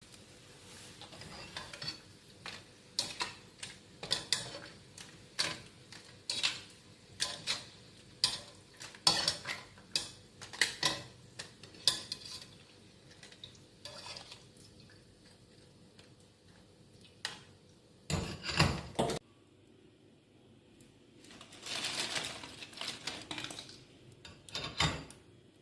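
Metal kitchen utensil clinking and scraping against a cooking pan while melinjo crackers are fried: irregular sharp clinks, about one a second through the first half, then a few longer scraping spells later on.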